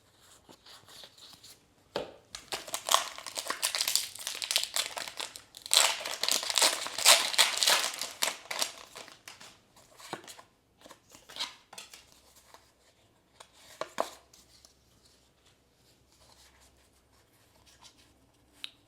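Foil booster-pack wrapper being torn open and crinkled in two long rustling stretches, followed by scattered light clicks and rustles as the cards are handled.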